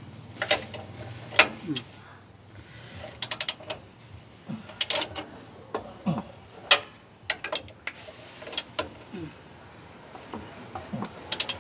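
Hand ratchet wrench clicking in several short runs of rapid clicks, with single sharp metallic clinks between, as the U-bolt nuts clamping a leaf spring are tightened.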